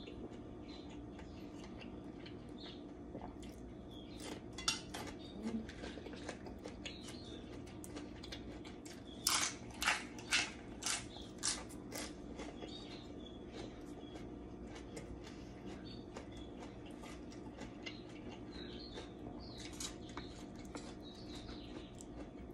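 A metal spoon and fork clinking and scraping against stainless steel bowls and a tray while eating, with a run of four louder clinks about half a second apart a little before halfway. A steady low hum runs underneath.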